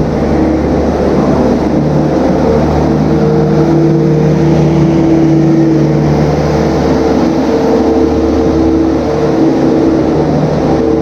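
Engine of a farm vehicle running continuously under load, its pitch shifting up and down as it works.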